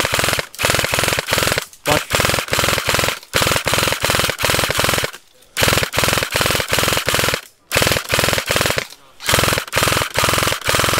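ICS L86A2 airsoft electric gun firing full-auto in repeated bursts of one to two seconds each, separated by short pauses.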